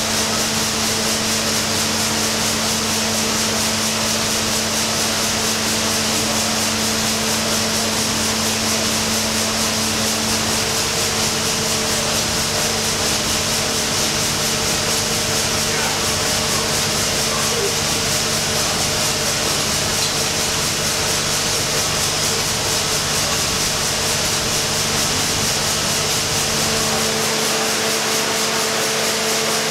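Engine-room noise of a running 800 hp triple-expansion reciprocating steam engine: a dense, continuous mechanical rush with steady hums underneath. The deepest part of the hum drops away near the end.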